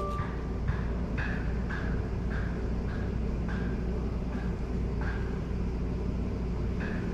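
Tow vehicle's engine running steadily with a low rumble while backing the camper trailer into the site, with a faint soft rustle repeating a little under twice a second.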